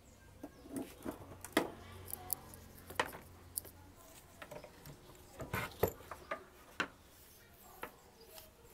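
Scattered light clicks and knocks of handling: an electric drill's plug being pushed into a wall outlet and things moved about on a workbench. No motor is running.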